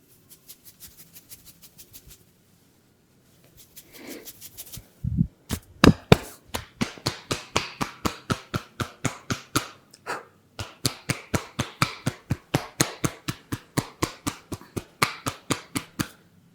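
Hands tapping and slapping in a percussive massage: a soft, quick patter for about two seconds, then loud, even slaps about four or five a second, pausing briefly a little past the middle.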